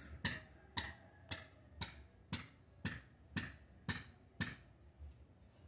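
Sharp, evenly spaced ticking clicks, about two a second, fading out near the end.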